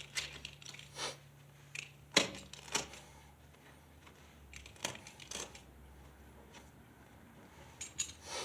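Scattered sharp metallic clicks and clinks of loose steel fastener hardware being handled, with the loudest clink about two seconds in.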